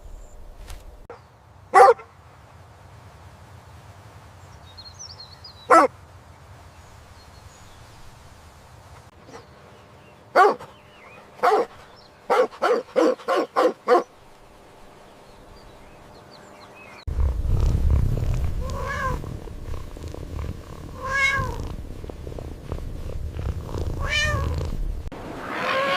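Cat meowing: single short mews spaced out, then a quick run of about six short mews. About two-thirds of the way in, a louder stretch begins with a low rumble under three longer meows.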